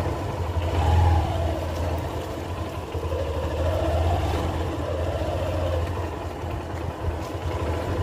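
Motorcycle engine running while riding slowly, its pitch rising and falling a few times with the throttle; loudest about a second in.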